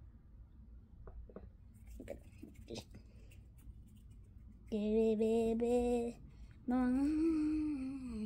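A boy hums two long held notes, the second rising a little and then falling. Before them come a few seconds of faint soft taps and rustles.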